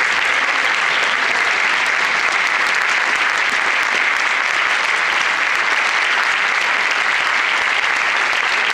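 Audience applauding steadily, a dense, even clapping with no break.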